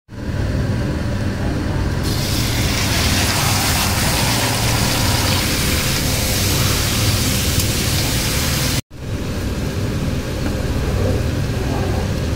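Chicken and fried onions sizzling in hot oil in a kadai, a steady hiss over a low rumble. The hiss grows louder about two seconds in, breaks off suddenly for an instant about two-thirds of the way through, then goes on a little softer.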